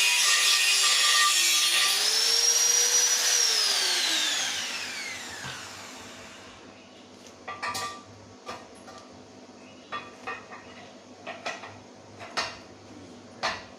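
An electric power tool's motor whining under load, its pitch rising briefly about two seconds in, then winding down as it is switched off and coasts to a stop. Afterwards a few short clicks and knocks.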